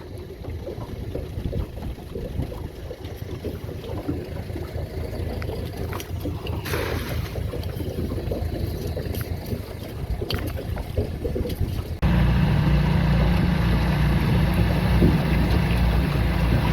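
Small boat's outboard motor running low, with wind on the microphone. About twelve seconds in, a much louder steady low rumble starts suddenly.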